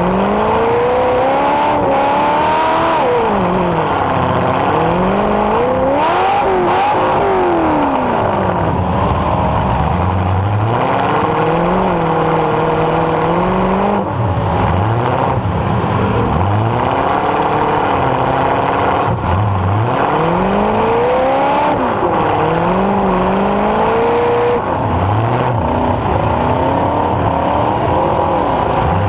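Demolition derby car's engine, heard close through two straight exhaust pipes standing up through the hood, revving up and falling back over and over as the car drives and manoeuvres.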